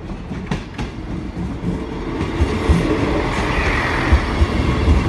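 A Class 158 diesel multiple unit passing over the level crossing, growing louder from about two seconds in. Its wheels clatter over the rail joints with heavy low thuds.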